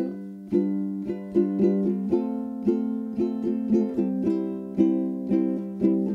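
Background music: a light tune of plucked string notes.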